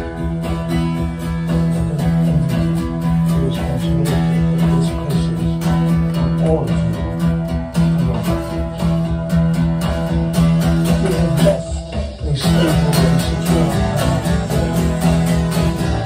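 Acoustic guitar strummed in a steady, even rhythm: an instrumental break between the sung lines of a country-style song. The strumming drops out briefly about twelve seconds in, then resumes.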